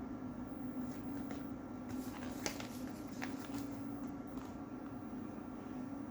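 Light handling noises of packaging during an unboxing: a few scattered clicks and rustles, the sharpest about two and a half seconds in, over a steady low background hum.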